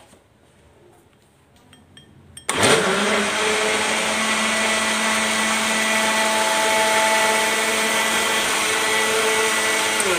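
Countertop electric blender switching on about two and a half seconds in, spinning up quickly and then running steadily as it blends milk and cut mango into a shake. Its motor begins to wind down right at the end.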